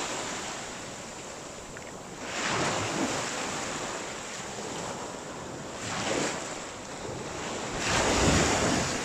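Small waves breaking and washing up the beach at the water's edge, surging three times with foam rushing in between quieter lulls.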